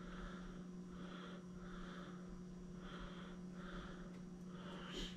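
A man breathing through his nose, soft even in-and-out breaths about once a second, over a steady low hum.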